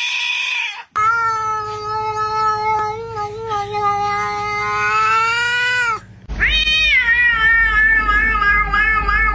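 Cat yowling: a short call, then one long drawn-out yowl lasting about five seconds, and after a brief break another long yowl that starts high and slides down in pitch.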